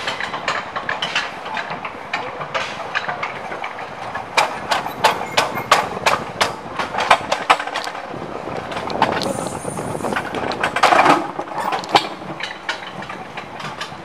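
Alpine coaster sled running along its metal rails: a steady rumble of the wheels with many sharp clacks from the track, thickest a few seconds in, and a louder, rougher stretch near the end.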